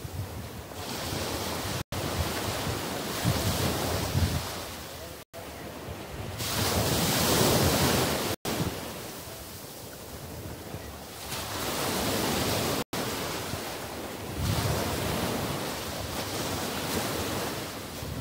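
Small waves breaking and washing up a sandy beach, the surf swelling and fading every few seconds, with wind buffeting the microphone. The sound cuts out for an instant four times.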